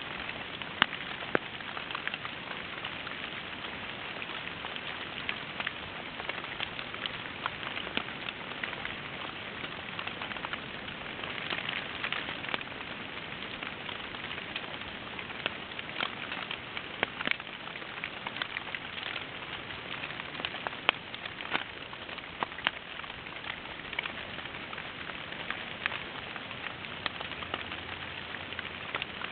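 Rain pattering steadily on leaves, with many scattered sharp ticks of single drops.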